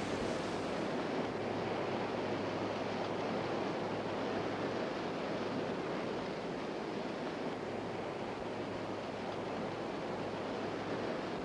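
Steady hiss with a faint low hum underneath, the background noise of an old film soundtrack.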